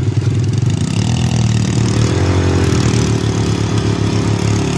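ATV (quad bike) engine running close by while riding, its pitch rising about a second in and then holding steady.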